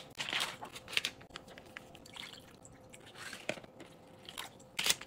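Irregular crinkles, squelches and plastic clicks of foil ingredient pouches being squeezed out into a plastic tray while a self-heating hot pot is put together, with a sharper click near the end.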